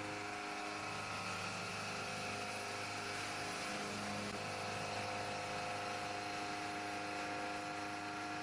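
CNC milling machine running: steady spindle and cutting noise with several held whining tones as the cutter machines a metal workpiece.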